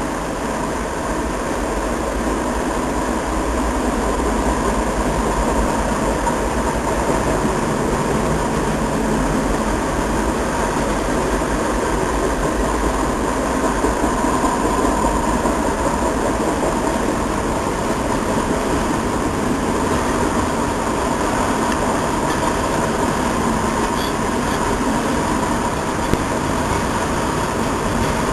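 Long intermodal freight train's cars rolling past steadily on the rails, a continuous rumble and rattle, with a faint steady tone running through it.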